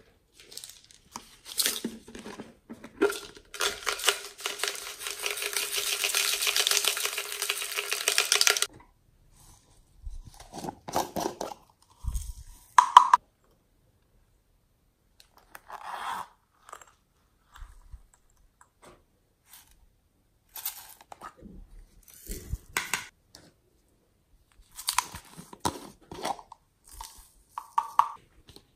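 Glitter and sequins being shaken and poured out of small plastic containers onto slime in a glass tray, with a steady rattle lasting about five seconds a few seconds in, then scattered clicks and taps as the plastic containers are handled and opened.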